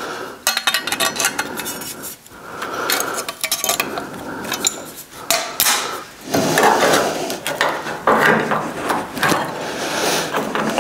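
Sheet-metal repair patch being bent and worked by hand with pliers: irregular metallic clinks and scrapes as the thin metal is gripped and folded, growing into denser scraping and crinkling from about six seconds in.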